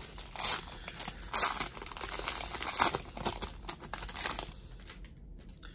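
Foil wrapper of a 1991 Pro Set PGA Tour card pack crinkling and crackling as it is torn open and peeled away from the cards. The crinkling stops about four and a half seconds in.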